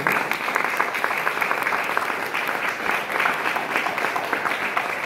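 Audience applauding: many people clapping at once, at a steady level.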